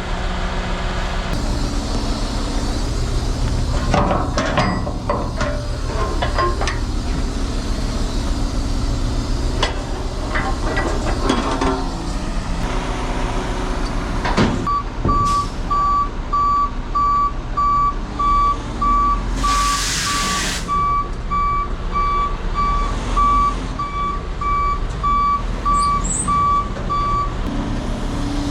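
Diesel engine running steadily, with scattered metal clanks and knocks in the first half. About halfway in, a vehicle's reversing alarm starts beeping steadily, a little over once a second, and stops shortly before the end; a short burst of air hiss comes about two-thirds of the way through.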